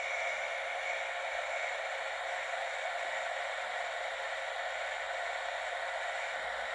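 Steady hiss of radio static from a Fisher-Price toy walkie-talkie's small speaker, receiving on a CB channel with no one transmitting.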